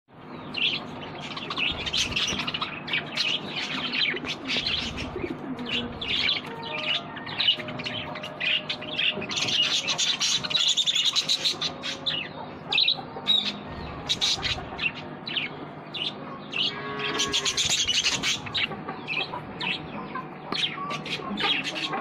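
A flock of budgerigars chattering: a dense, unbroken run of quick high chirps and warbles from many birds at once.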